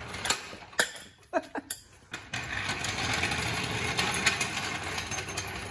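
Steel floor jack clanking a few times as it is handled, then rolling across a concrete floor on its wheels with a steady rattle from about two seconds in.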